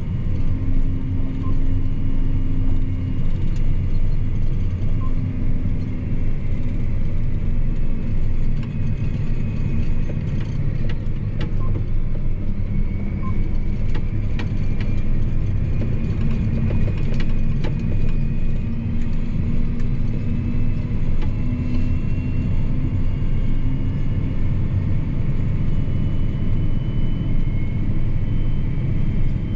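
John Deere 8245R tractor's six-cylinder diesel engine running steadily under load while towing a loaded tandem trailer on the road, heard inside the cab as a continuous low drone with a faint high whine. A few faint clicks come from the cab midway.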